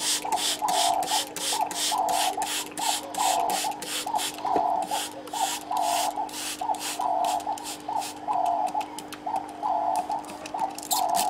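Trigger spray bottle pumped over and over, each squeeze giving a short hiss of water mist, about two to three squeezes a second, misting the soil in small seedling pots.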